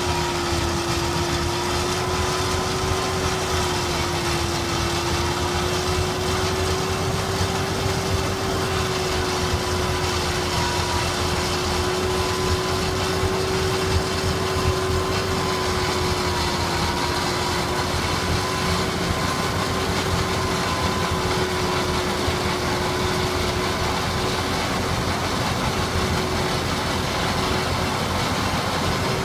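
Fendt Vario tractor running under steady heavy load while driving a front-mounted Trejon Optimal 2650HD snow blower through very heavy snow. A steady machine whine that wavers slightly in pitch sits over a constant rushing noise of the snow being thrown.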